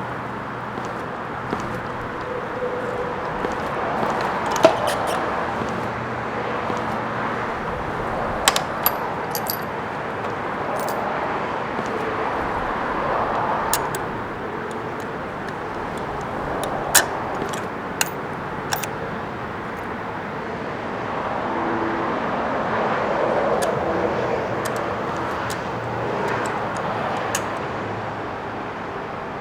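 Outdoor road traffic, with cars passing in slow swells and scattered sharp clicks and clinks over it.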